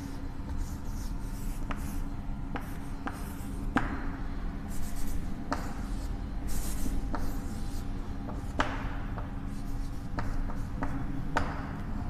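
Chalk on a chalkboard as a circuit diagram is drawn: scratchy strokes with repeated sharp taps where the chalk meets the board, over a steady low room hum.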